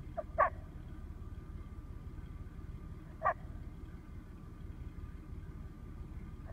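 A person calling moose by voice: three short, loud calls about three seconds apart, over a steady low rumble.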